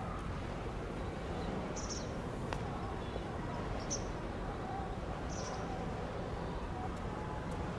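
Outdoor background noise, a steady low rumble, with a few short, high bird chirps spread through it, about three in all.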